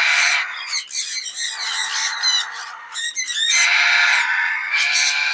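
Several parrots squawking and screeching in an aviary: harsh screeches near the start and again from about three and a half seconds in, with quick chirps and whistles between them.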